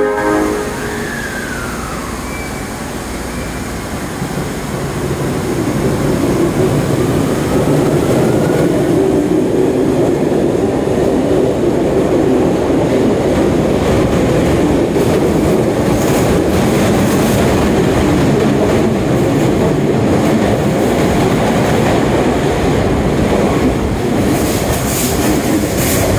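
Osaka Metro 30000-series subway train pulling out of the station. A faint whine rises as it picks up speed, then the cars run past with a steady, loud rumble of wheels on rail.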